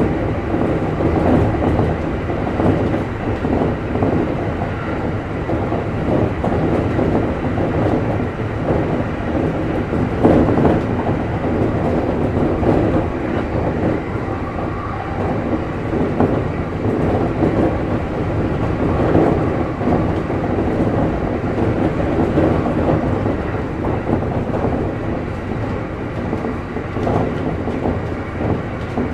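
Steady running noise of an electric commuter train at speed, heard from inside the leading car: a continuous rumble of wheels on rail.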